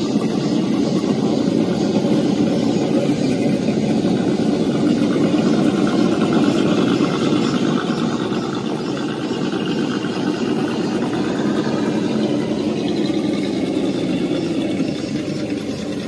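Scale RC rock crawlers' electric motors and gears whirring steadily as the trucks drive through a shallow creek.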